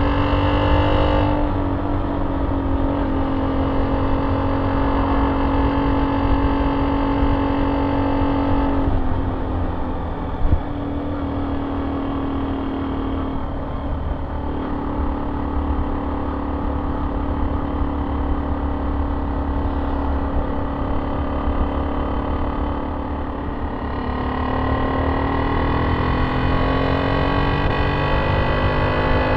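Honda C70's small four-stroke single-cylinder engine running through a banana-style aftermarket exhaust on the move, its note holding steady, dropping about nine seconds in, then rising steadily near the end as the bike gathers speed. Wind rumbles on the microphone, with one brief knock about ten seconds in.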